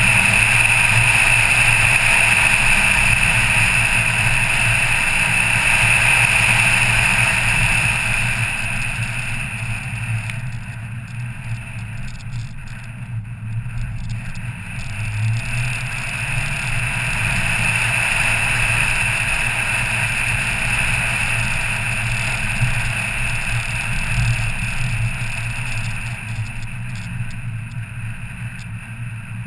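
Car driving up a winding mountain road: a steady low engine hum under tyre and wind noise. It dips in level for a few seconds around the middle, then picks back up.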